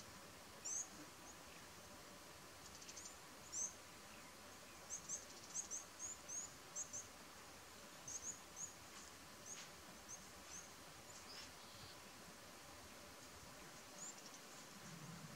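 Small birds chirping in the bush: short high notes, singly and in quick runs of two or three, scattered over a faint steady background hiss, with a couple of brief buzzy trills.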